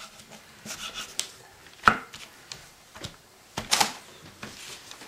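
Kitchen knife cutting a mackerel on a newspaper-covered cutting board: light scraping and a few sharp knocks, the loudest about two seconds in and another cluster a little before four seconds.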